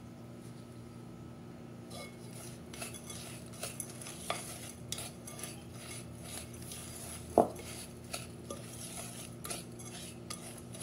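Wooden spatula stirring Oreo biscuit crumbs moistened with melted ghee in a glass bowl: soft, gritty scraping with light taps of the spatula against the glass, starting about two seconds in, and one sharper knock in the middle.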